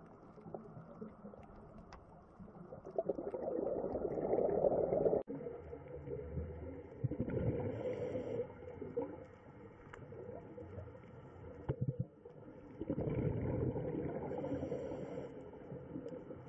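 Underwater sound of a scuba diver breathing: exhaled bubbles from the regulator rumble and bubble in surges a few seconds apart. The sound breaks off abruptly twice.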